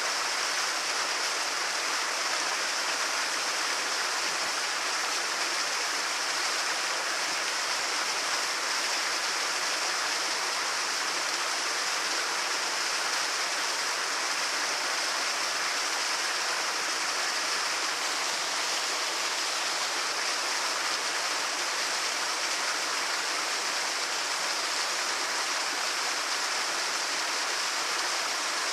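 Medium-sized waterfall pouring steadily into a lake: an even, unbroken rush of water with a bright hiss in the highs and little low rumble.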